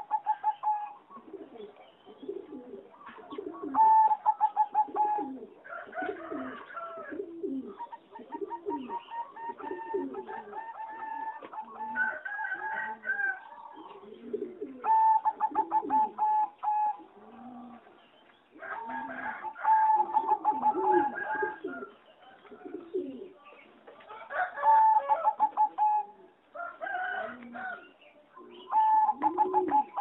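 Competition-bred singing zebra dove cooing: phrases of rapid staccato notes repeated over and over with short pauses, with lower coos beneath them.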